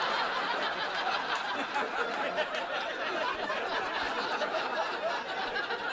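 Comedy club audience laughing, a steady crowd laugh that eases slightly near the end.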